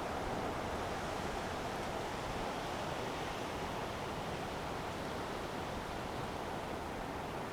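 Steady rushing noise of a coastal storm, wind-driven, with no breaks or distinct events.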